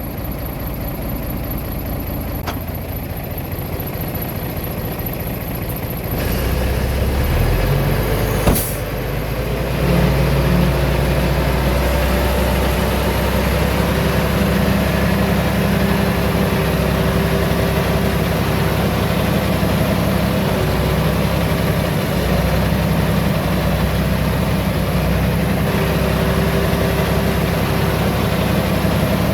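Heavy diesel engine of earthmoving equipment running steadily, rising in level about six seconds in and again a few seconds later as it works harder. There is one short sharp knock about eight and a half seconds in.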